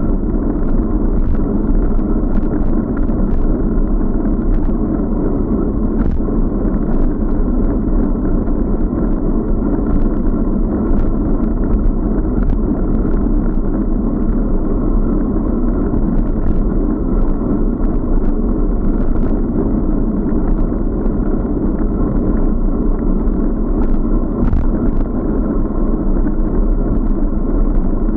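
Steady muffled rumble of wind and road vibration picked up by an action camera mounted on a moving bicycle, with frequent small clicks and knocks as the mount rattles over the road surface.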